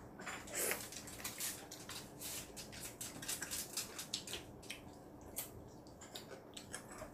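Children slurping and chewing jjajangmyeon (black-bean-sauce noodles), a quick irregular run of wet smacks and clicks.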